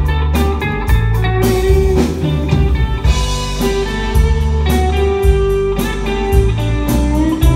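Live band playing an instrumental passage of a country song: electric guitar over bass guitar and a drum kit.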